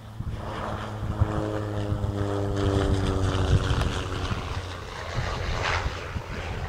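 Cessna 208 Caravan's single turboprop engine and propeller passing close by. It grows louder over the first few seconds, and its propeller tone drops in pitch as it goes past.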